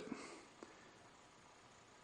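Near silence: faint room tone, with one faint tick about half a second in.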